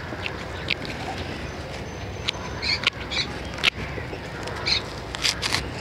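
Dry coconut husk fibre being cut up by hand, a few short snips and rustles, with a few small bird chirps in the background.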